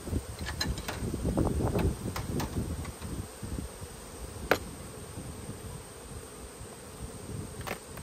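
Honeybees buzzing around an opened-up hive after smoking. Several sharp clicks come as the metal hive lid and strap are handled with a hive tool, the loudest about halfway through.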